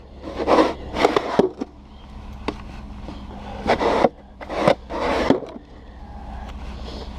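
Snow shovel scraping through snow, four strokes in two quick pairs.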